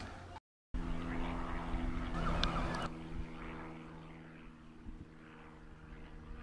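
Steady low drone of a distant engine, holding one pitch throughout, with a rushing noise over it that dies away about three seconds in. The sound cuts out briefly about half a second in.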